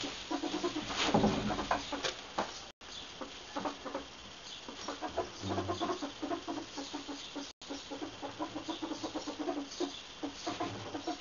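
Ferrets fighting, a hob attacking a jill: rapid runs of short chuckling pulses (ferret dooking), with a louder flurry about a second in. The audio cuts out for an instant twice.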